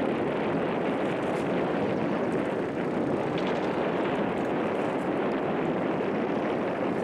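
Steady rushing noise of wind on the microphone, even throughout with no separate events.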